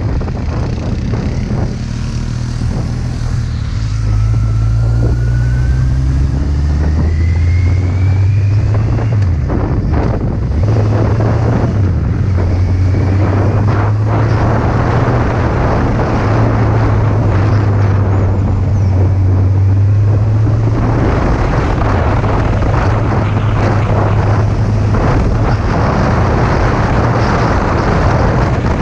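Kawasaki Z800's inline-four engine pulling up through the revs, dropping briefly about a third of the way in as it changes gear, then running steadily at speed. Heavy wind rush on the microphone.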